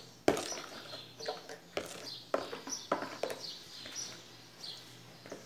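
Scattered sharp clinks and knocks of kitchen utensils against a bowl or jug as an ingredient is added. Short high chirps of a bird sound in the background throughout.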